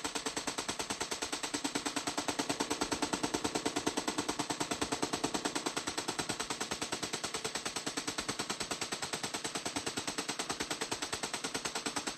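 Belt-fed light machine gun firing one long, unbroken fully automatic burst of rapid, evenly spaced shots.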